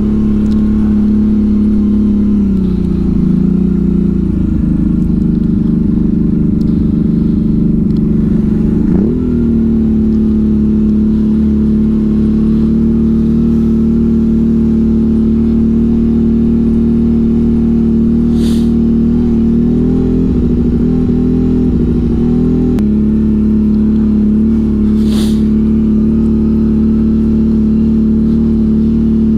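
ATV engine running under load at a steady pitch. The note dips a few seconds in, climbs back to a steady note, and wavers briefly later. Two short sharp clicks come in the second half.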